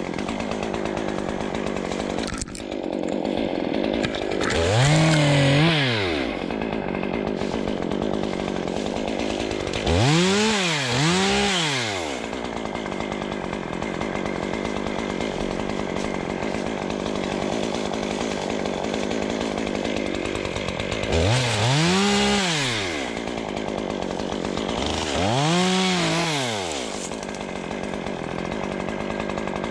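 Two-stroke chainsaw idling steadily, revved up briefly and let fall back to idle several times, some revs in quick pairs, as it trims brush and debris.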